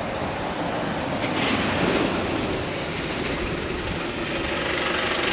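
Steady running noise inside a moving bus, a mix of engine and road rumble with a faint rattle, swelling a little about two seconds in.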